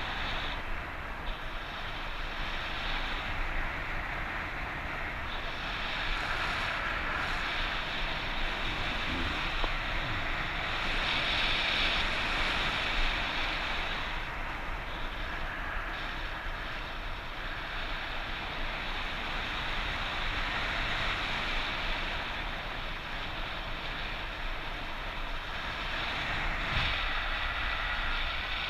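Airflow rushing over the microphone of a paraglider in flight in strong wind, a steady hiss that swells and eases every few seconds.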